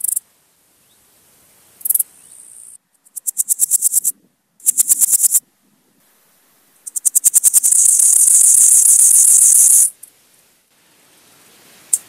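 Grasshoppers stridulating (Euthystira brachyptera, then Podismopsis keisti): short high rasping bursts and rhythmic trains of pulses at about ten a second. Later, a fast run of pulses merges into a loud high buzz lasting about two seconds, which then stops.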